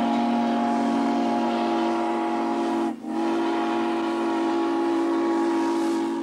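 Steam locomotive whistle blowing a steady chord of several notes in two long blasts, with a brief break about three seconds in.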